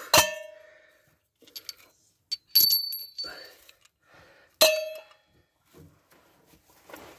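Metal exhaust clamps and tools clinking against each other three times, each clink ringing briefly, the middle one longest and highest, with faint handling noise between.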